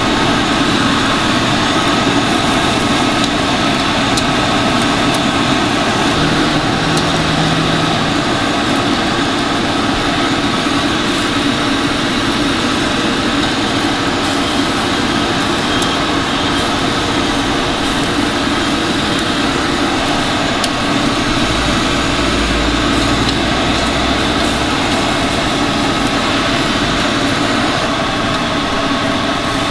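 Steady whir of a ventilation blower running continuously, a dense even hum with no change in speed.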